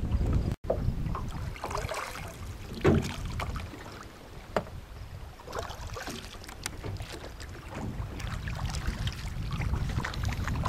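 Water moving against a drift boat's hull, with scattered small knocks and bumps from the boat and low wind rumble on the microphone. The sound drops out completely for an instant under a second in.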